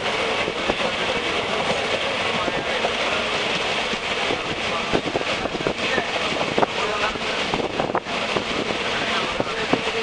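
Passenger train running, heard from a window seat inside the carriage: a steady rumble and rush of air, with irregular knocks from the wheels on the rails.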